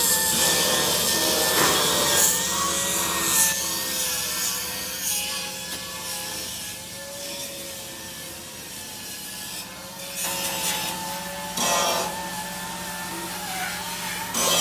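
Stick arc welding on a truck's steel floor plate: a continuous crackling hiss over a steady low hum. It grows quieter in the middle and has a short louder burst near the end.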